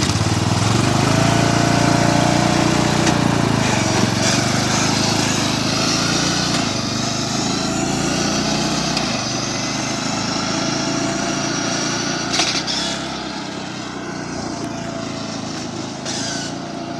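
Riding lawn mower engine running hard at high throttle with a wavering whine over it, loudest in the first few seconds and growing fainter in the second half.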